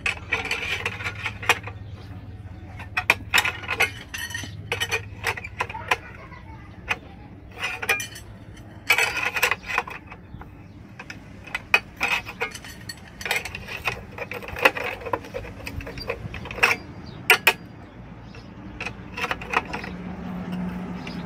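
Steel wire rod being bent into column stirrups on a homemade slotted angle-iron bender: repeated sharp metallic clicks and knocks with short scrapes as the rod is levered and shifted in the slots.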